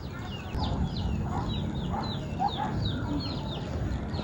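A group of ducklings peeping: many short, high peeps that slide downward, several a second and overlapping. A few lower calls come in near the middle.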